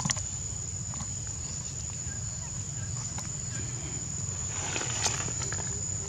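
Steady high-pitched drone of insects. Sharp knocks of handling noise sound just after the start, as a baby macaque's hand reaches into the lens. Another cluster of clicks comes about five seconds in.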